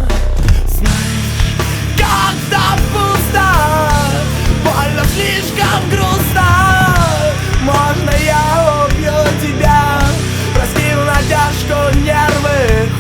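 Loud heavy rock music, with a dense low band sound under a melody line that bends up and down in pitch.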